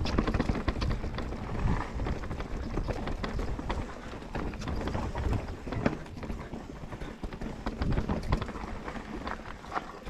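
Commencal Meta enduro mountain bike ridden down rough singletrack: a dense, irregular clatter of knocks and rattles as it runs over the trail, over a steady low rumble.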